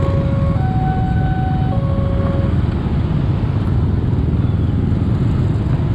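Level-crossing warning alarm sounding an alternating two-tone chime that stops about two and a half seconds in as the crossing reopens. Underneath is the steady running of many waiting motorcycles.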